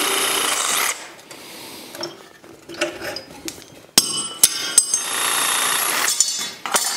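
Cordless reciprocating saw cutting through old carriage bolts between an iron strap and a wooden board. It runs for about the first second, stops, then starts with a sharp click and runs again for about two seconds from the middle, with knocks and rattles of the iron and wood in between and near the end.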